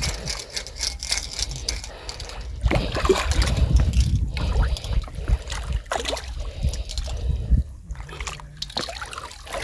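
Hooked mrigal carp splashing and thrashing at the water's surface in irregular bursts as it is drawn in on a hand line to the rocky edge.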